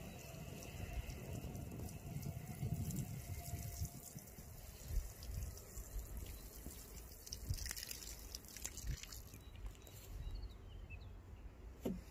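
Water sprinkling from the rose of a watering can onto soil and young seedlings.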